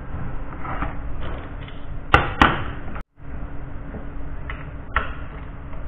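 Metal hand tools being handled at a workbench: two sharp clanks about a third of a second apart, then two lighter clicks, over a steady low shop hum. The sound cuts out briefly just after the clanks.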